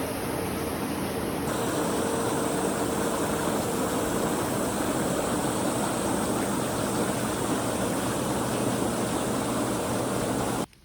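Steady rushing of running water, like a waterfall or stream, that cuts off suddenly near the end.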